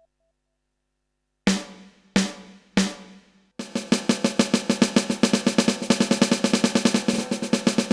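Roland TD-12 electronic drum module's snare sound, played from a mesh pad: three single hits, then a fast, even snare roll. It is a sensitivity test, and the pad triggers without trouble.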